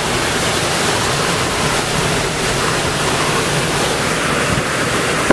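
Loud, steady rush of storm-force wind and heavy driving rain, with wind buffeting the microphone.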